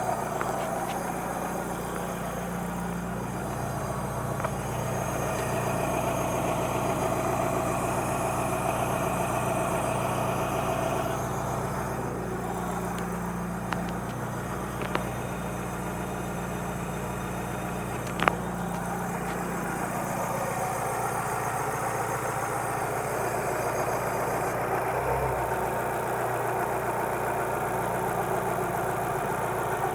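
Alfa Romeo 146 ti's 2.0 Twin Spark four-cylinder engine idling steadily, with a few short sharp clicks a little before and after the middle.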